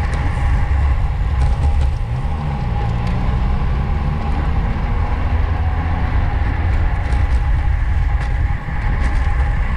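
Wind rushing over a bicycle-mounted or helmet camera's microphone during a fast bike race, a loud, steady rumble with tyre and road noise.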